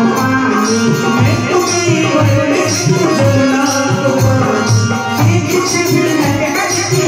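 Live Hindu devotional bhajan music: an electronic keyboard playing the melody over a steady dholak beat, with hands clapping along.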